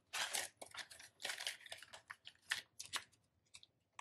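Paper banknotes rustling and crinkling in several short bursts as they are handled and slid in and out of clear plastic binder envelopes. The loudest burst comes right at the start.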